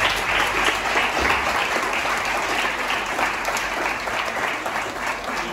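Audience applauding: many hands clapping together, a dense steady patter that thins out near the end.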